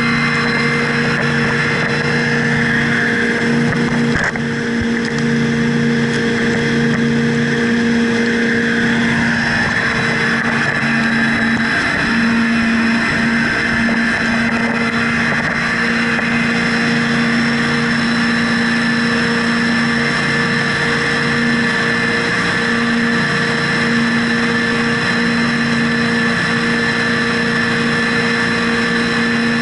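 Twin Seven Marine 557 supercharged V8 outboard engines running steadily at high speed, with water rushing and spraying past the hull.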